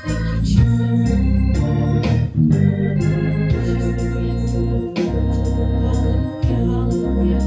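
Organ playing held chords over a deep bass, the chords changing every second or so.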